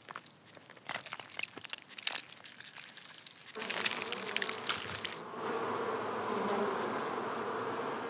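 Dry crackling and crunching as a queen honeybee chews through the wax tip of her queen cell. About three and a half seconds in, a mass of honeybees starts buzzing, settling into a steady hum about five seconds in.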